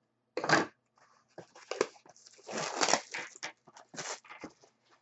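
Plastic shrink-wrap and a cardboard trading-card box being torn open and handled: a run of short crinkles and scrapes, with a longer rustle about halfway through.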